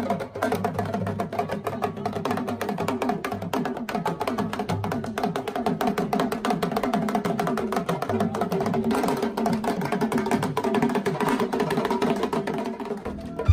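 Background music: a fast, dense percussion track of quick wood-block-like clicks over a held low tone.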